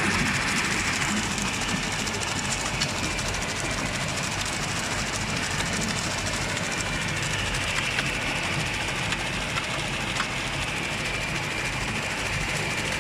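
Screw-press manure dewatering machine and its slurry pump running steadily, a continuous mechanical drone with a few faint clicks.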